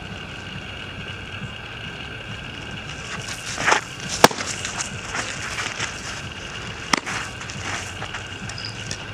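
A baseball smacking into a catcher's mitt with one sharp pop about four seconds in, and a second sharp crack near seven seconds. Both stand over a steady outdoor background hiss.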